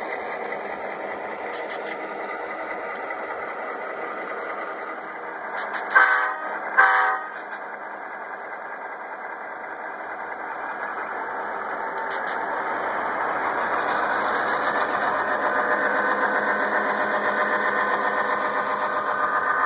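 Model diesel locomotives' DCC sound decoders playing diesel prime-mover sound through small speakers, with two short horn blasts about six and seven seconds in. The engine sound grows louder through the second half.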